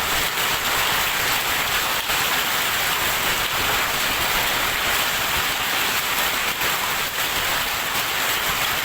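Hail and heavy rain falling in a steady, dense patter of countless small hits.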